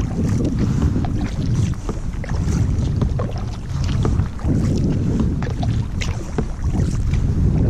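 Kayak paddle strokes: the blade dipping in and pulling through the water with splashes and drips, and water washing along the hull. Under it a low rumble swells and eases every couple of seconds.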